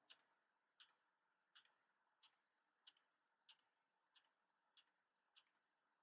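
Faint, evenly spaced clicks of a lighting console's key being tapped over and over, about three every two seconds. Each press steps through the console's button colour schemes while shift is held.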